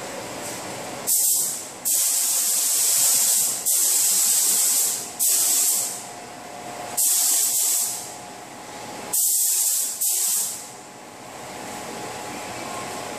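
SATA compressed-air paint spray gun hissing in about seven separate trigger pulls, each half a second to nearly two seconds long and cut off sharply, as paint is sprayed onto body panels. A steady ventilation hum runs underneath.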